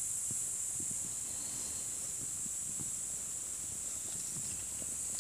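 Steady high-pitched chirring of an insect chorus, with a few faint low scuffs.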